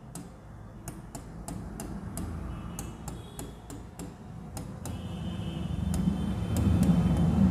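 Marker tip tapping dots onto a writing board, short sharp ticks about three a second, fewer after the middle. A low rumble grows louder in the second half.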